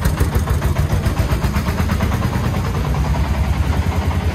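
Diesel engine of a three-wheeled công nông tipper truck running close by, with a rapid, even pulsing beat.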